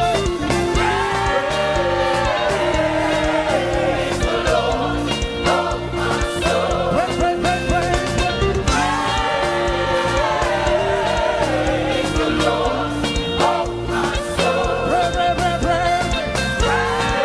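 Live gospel praise music: voices singing a melody over a band with a steady beat.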